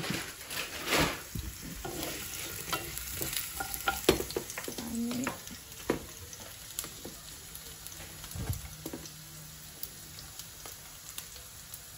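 Ginger and garlic frying in hot oil in a pan, a steady sizzle. Sharp clicks and knocks from a glass jar of dried red chillies being opened and rummaged come mostly in the first half.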